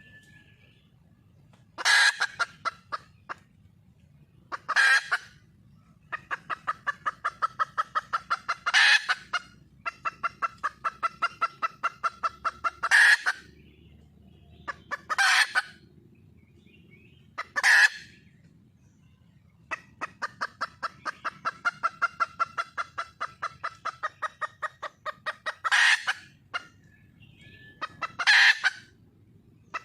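Red junglefowl hen calling: long runs of quick, evenly spaced clucks, about four a second, broken by eight loud, sharp squawks, the hen's call for a mate.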